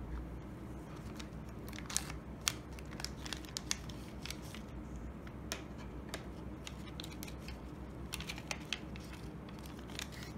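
Foil test pouch crinkling and being torn open by gloved hands, a run of sharp crackles and clicks, then a plastic test cassette set down on a tabletop, over a low steady hum.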